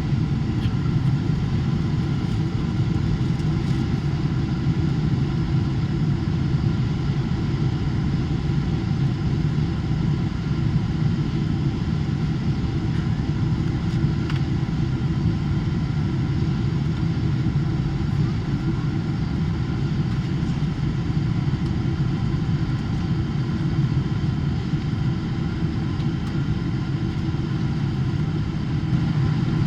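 Steady cabin noise inside a Boeing 777-300ER in flight: the low rumble of its GE90 turbofan engines and airflow past the fuselage, with faint steady whining tones above it.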